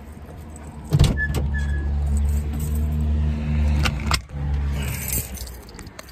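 A car's engine running as a loud low hum that starts suddenly about a second in and fades out after about four seconds, with keys jangling and a few clicks.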